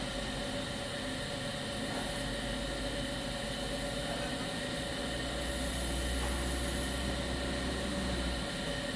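Steady mechanical hum with a hiss and a few fixed tones, over a low rumble that grows louder in the second half and cuts off near the end.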